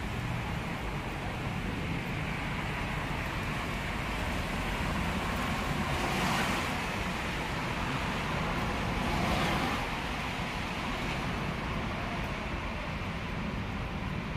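Road traffic: a steady hiss of road noise, with two vehicles swelling past about six and nine seconds in.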